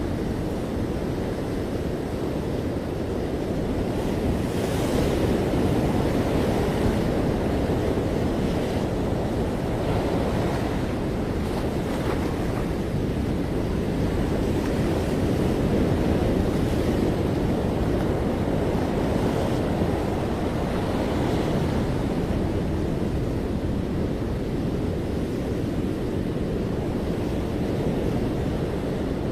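Ocean surf breaking on a beach: a steady, low wash of waves that swells and eases, with faint hissy rushes now and then. Wind buffets the microphone throughout.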